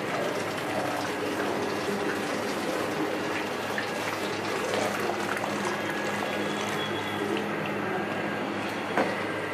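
Water running steadily, with a single sharp knock about nine seconds in.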